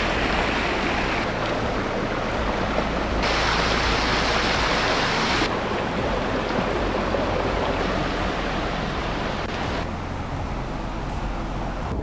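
A mountain stream flowing steadily. The rushing changes abruptly in brightness a few times.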